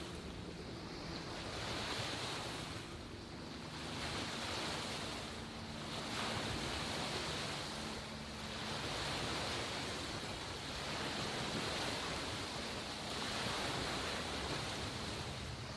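Wind and small waves on open bay water: a steady rushing wash that swells and eases every two to three seconds.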